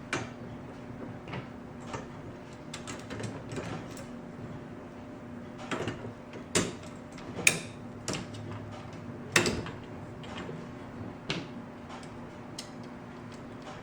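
Scattered light clicks and taps of a small nut and bolt being handled and fitted through a copper sleeve on an aluminium umbrella rib, with a couple of sharper knocks, over a steady low hum.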